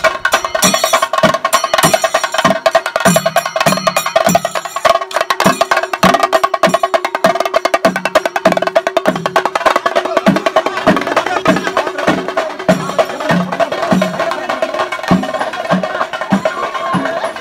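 Chenda drum ensemble playing fast rolling stick strokes, with a deeper beat repeating a little under twice a second. A steady held note runs underneath through the middle.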